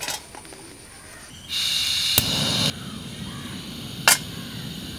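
Portable LPG cylinder stove: a light metal clack as it is set down, then about a second and a half in a loud gas hiss from the burner, a sharp click, and the burner settles into a low steady rush. About four seconds in, a sharp metal clank as a non-stick pan is set on the burner.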